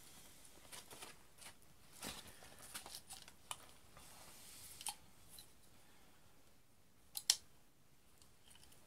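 Faint scattered clicks and rustles of a Western Rider toy cap-gun revolver being handled, with a sharper double click about seven seconds in.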